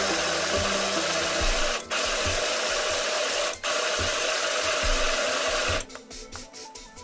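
Electric pot chopper running, its blade whirring through green and red peppers to chop them fine. The motor cuts out for a split second twice, then stops about six seconds in.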